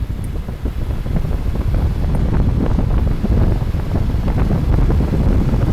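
2003 Mazda Miata's four-cylinder engine running with a rapid ticking over a low rumble, getting louder over the first couple of seconds and then holding steady. The tick is the unexplained noise the owner is asking about.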